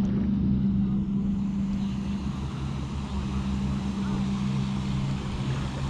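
Motorboat engine running with a steady drone as the boat goes by on the channel.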